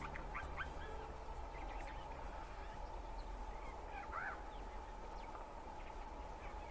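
Eurasian jay calling: a few short arched notes, the clearest about four seconds in, over a faint steady hum.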